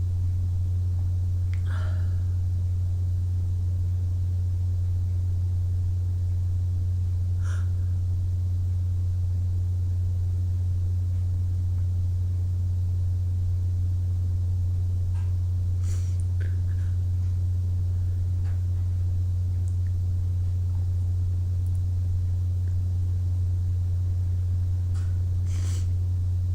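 A steady low hum throughout, with a person's faint, short breathing sounds every few seconds, four in all.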